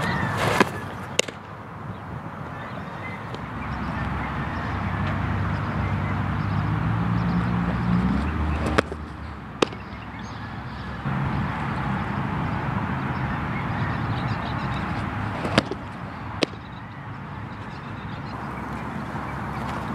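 Three pitched softballs smacking into a catcher's mitt, each a pair of sharp pops less than a second apart, over steady outdoor background noise. A low hum rises in pitch in the middle and stops with the second smack.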